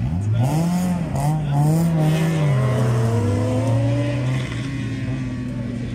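Engine of a slalom competition car being driven hard, revs climbing and dipping several times in quick succession, then a long slow climb that eases off about four and a half seconds in and holds a steadier note.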